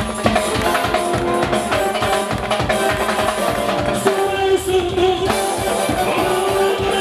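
Live band music led by a drum kit played fast: rapid drum and cymbal strikes under a steady melody, with a held wavering note about four seconds in.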